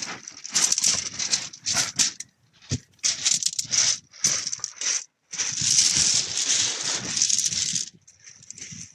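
Footsteps crunching across pebble shingle in an irregular run of bursts, with coat fabric rubbing against the microphone.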